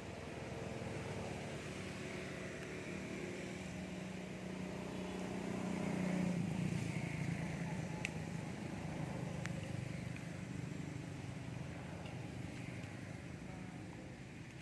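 A motor vehicle's engine running, swelling to its loudest about six seconds in and fading again, with a few sharp clicks.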